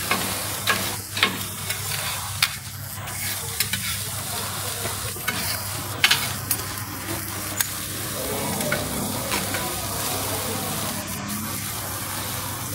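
Cheesy corn sizzling on a hot griddle as it is stirred, with sharp clicks and scrapes at irregular moments over a steady hiss.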